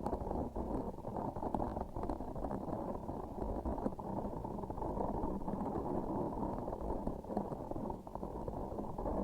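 Close-up sticky, squishy crackling from a transparent sticky object with a filling inside being pressed and worked by hand, full of small clicks and pops. It sounds muffled, with the high end cut away.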